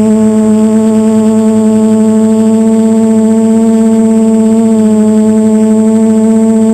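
ADS400 quadcopter's motors and propellers running with a loud, steady drone whose pitch barely changes.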